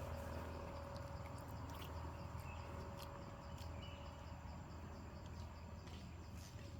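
Faint outdoor ambience: insects chirping in an even, rapid pulse over a low steady hum, with a few faint clicks.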